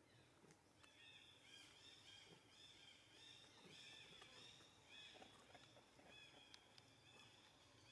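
Faint, near-silent forest background with quick high chirping calls repeating several times a second, and a few faint ticks.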